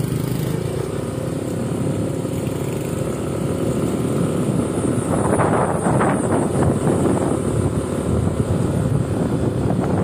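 Small motorcycle engine running as the bike rides along. Wind rumbles on the microphone from about halfway through.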